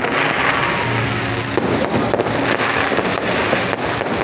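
Aerial fireworks bursting overhead in a continuous barrage: a dense crackle with many quick pops.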